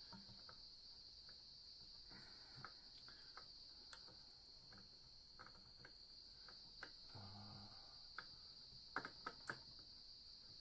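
Faint small metal clicks and taps as tiny screws and pins are worked by hand into a La Pavoni lever espresso machine's group head, with a cluster of three sharper clicks near the end. A steady high-pitched whine runs underneath.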